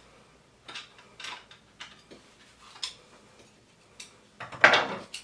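Light metallic clicks and clinks of a hand plane's metal parts being handled and taken apart, spaced irregularly, with a louder clank near the end.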